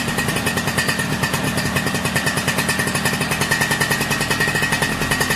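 Motor scooter engine running steadily, a rapid even pulsing, with a thin steady whine above it.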